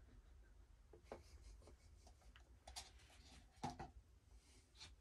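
Near silence: room tone with four or five faint, brief clicks and taps from a plastic paint cup being handled over the canvas.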